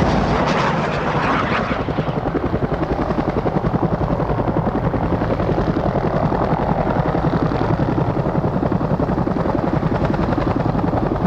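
JGSDF AH-1S Cobra attack helicopter's two-blade rotor beating steadily with a fast, even pulse, its turbine running under it. A rushing noise rides over it for the first two seconds.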